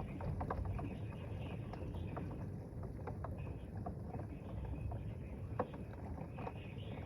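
Storm rain and wind: a steady low rumble with scattered irregular ticks, like drops or small hail striking, and one sharper tick a little over five seconds in.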